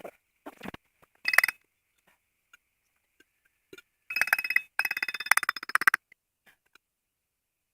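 A metal digging tool grating and scraping through rocky, gravelly soil. There is a short scrape about a second in, then two longer gritty scrapes in the middle, full of small clinks of stone.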